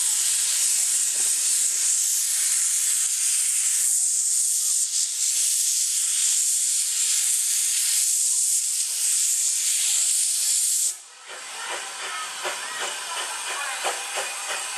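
Narrow-gauge steam tank locomotive blowing steam from its open cylinder drain cocks, a loud steady hiss that cuts off sharply about eleven seconds in. After that, quieter clanks and clicks as the locomotive pulls away over the rails.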